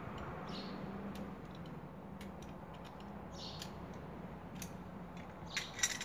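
Small metallic clicks and snips of cutting pliers stripping insulation from the wires of a vacuum cleaner power cable, with a quick cluster of louder clicks near the end.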